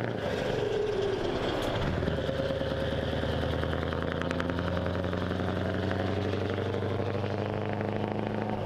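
Scania 164 truck's V8 diesel with an open exhaust pipe running. Its pitch drops about two seconds in and then holds steady, with a fast, even pulsing from the exhaust.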